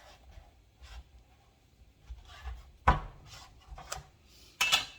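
Knife cutting through a whole breadfruit: soft scraping and sawing strokes, with a sharp knock about three seconds in and a louder cutting stroke near the end.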